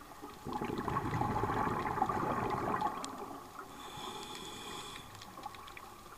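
Scuba diver breathing through a regulator underwater: a long exhalation of bubbles from about half a second to three seconds in, then a quieter hissing inhalation with a faint whistle.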